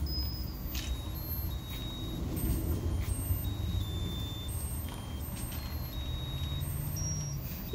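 Musical lotus-flower birthday candle's small electronic speaker playing a tune in thin, high, beeping notes, one after another at changing pitches, over a steady low rumble.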